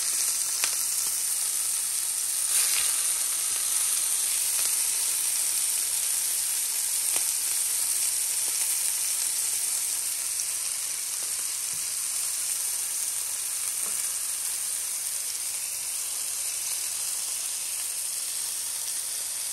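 Ground wild boar patties sizzling steadily as they fry in oil in a stainless steel frying pan, with a few light ticks along the way.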